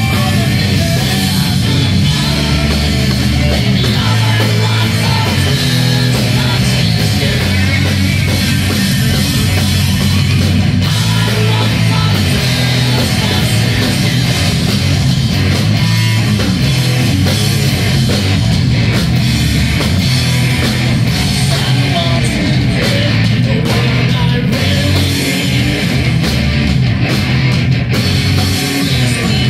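Live heavy metal band playing loud, with distorted electric guitar and a singer, heard from within the crowd.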